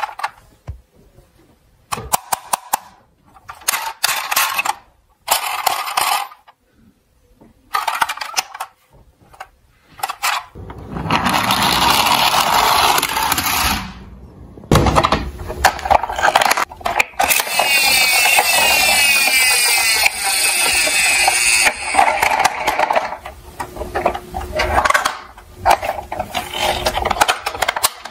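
Plastic toy ambulances handled with short clicks and rattles, then toy vehicles rolling down a steep ramp onto a wooden floor in a long, loud plastic rattle with a sharp knock partway through. Short handling clicks follow near the end.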